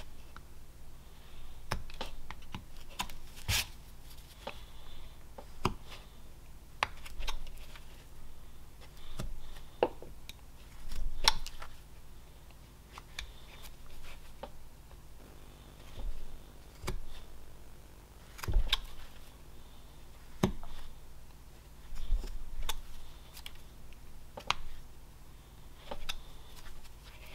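Carving knife slicing basswood by hand: a series of short, crisp cuts at irregular intervals of a second or two, each a sharp snick as a chip parts from the block. A faint low hum runs underneath.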